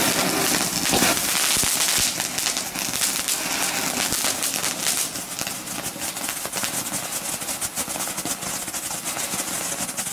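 Small ground fireworks burning on a board: a fountain hissing as it sprays sparks, then Nico strobe pots crackling with many rapid small pops.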